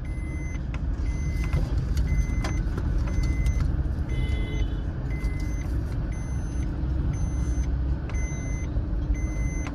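Inside a small car moving slowly over a rough street: steady low engine and road rumble, with the left turn indicator ticking at a regular pace. A brief high beep is heard about four seconds in.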